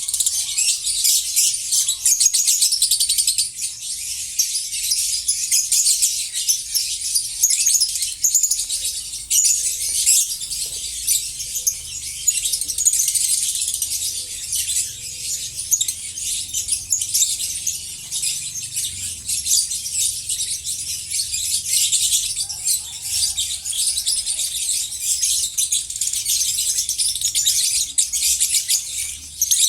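A flock of lovebirds chattering together: a dense, shrill twittering that goes on without a break.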